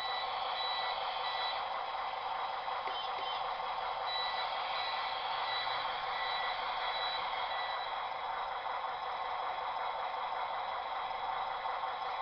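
Reversing beeper of a radio-controlled scale model Linde forklift, sounding short repeated beeps in two spells as the forklift moves off, over a steady mechanical hum.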